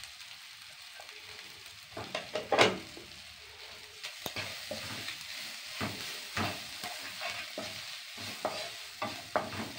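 Sliced onions, green chillies and spices sizzling in oil in a non-stick wok, stirred with a spatula that scrapes the pan in irregular strokes. The sizzle is steady, and the stirring starts about two seconds in, loudest shortly after.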